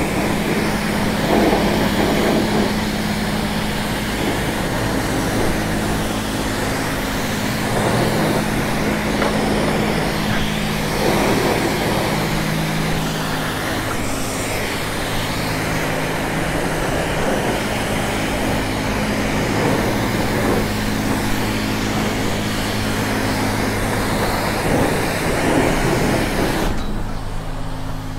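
High-pressure water jet from a self-serve car wash wand hissing and spattering against a scooter and the concrete floor, over a steady low hum. The spray cuts off suddenly near the end, leaving only the hum.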